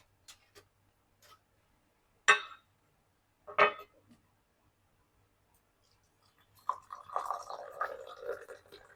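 Kitchen utensils and dishes being handled: a few light clicks, two sharp knocks just over a second apart, then several seconds of scraping and rustling.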